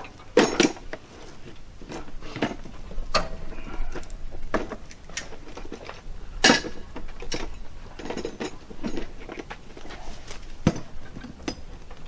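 Irregular metallic clicks, clanks and knocks from hand work on a Norwood LumberPro HD36 band sawmill's blade housing and fittings. The loudest knocks come about half a second in, midway through and near the end.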